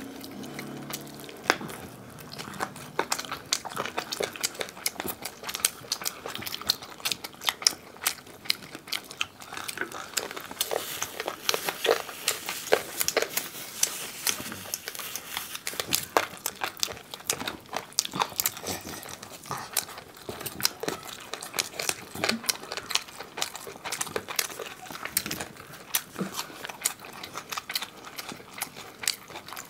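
Close-miked eating by hand: chewing and mouth clicks from two people eating rice and chicken curry, with the soft crackle of fingers mixing rice. It comes as a dense, irregular stream of small sharp clicks.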